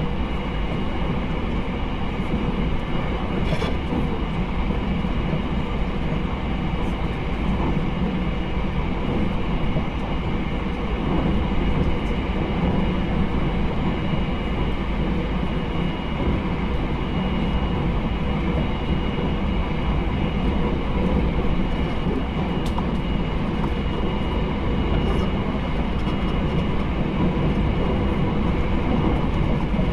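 Interior running sound of a JR Hokkaido 789 series 1000 subseries electric express train travelling at a steady speed: an even rumble of wheels and running gear, with a faint steady high tone and a few faint clicks.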